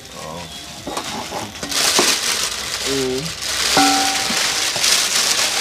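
Thin plastic bags crinkling and rustling loudly as they are handled and squeezed. The noise grows strong about two seconds in and keeps shifting.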